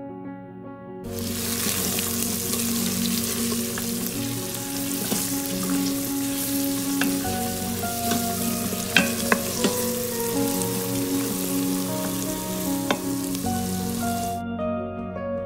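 Sliced onions and ground spices sizzling in hot oil in a stainless steel Instant Pot inner pot, stirred with a wooden spoon, with a few sharp knocks of the spoon about two thirds of the way through. The sizzle starts about a second in and cuts off shortly before the end, over soft guitar background music.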